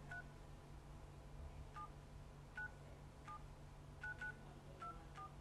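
Smartphone keypad tones as a phone number is dialed: about eight short, faint two-note beeps at uneven intervals, two in quick succession about four seconds in.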